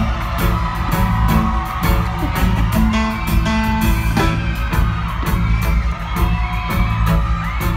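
Live band vamping between songs: a drum kit keeping a steady beat under a bass guitar line.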